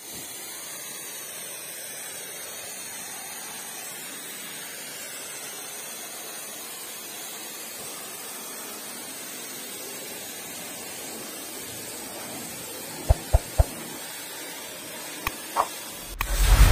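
High-pressure water jet from a car-wash wand spraying against an SUV's body and wheels, a steady hiss. About thirteen seconds in come three short sharp knocks, and near the end a louder low thump.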